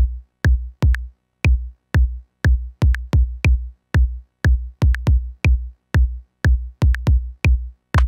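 1010music Blackbox sampler playing a deep electronic kick drum in a steady beat, about two hits a second, with an extra hit slipped in between beats now and then.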